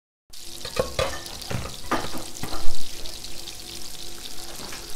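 Kitchen clatter after a moment of silence: several knocks and clinks of kitchenware over a hiss, the loudest nearly three seconds in.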